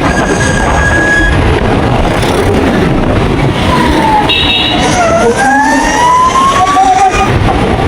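Ather 450X electric scooter being ridden: loud, steady rushing noise on the microphone, with a thin whine that rises in pitch from about five seconds in.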